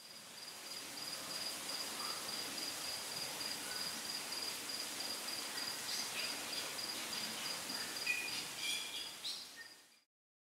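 Summer meadow ambience: an insect chirrs steadily in a high note pulsing about four to five times a second over a soft outdoor hiss. A few short bird calls come near the end. The sound fades in at the start and fades out just before the end.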